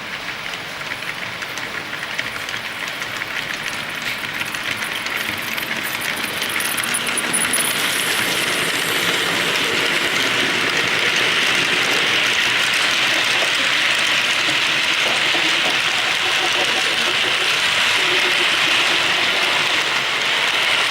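Model train running on the layout track: a fine metallic rattle of wheels clicking over rail joints, growing louder over the first several seconds and then holding steady.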